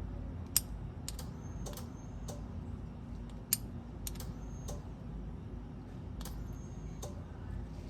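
Irregular sharp clicks in a car's engine bay, one or two a second, several followed by a short high ring, over a low steady hum. They come as a bolt is swung past a dangling crank position sensor with the ignition on, and the source of the clicking is unidentified.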